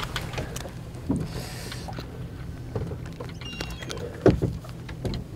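A small fishing boat's engine running at idle, a steady low hum, with scattered light clicks and knocks from fishing tackle being handled.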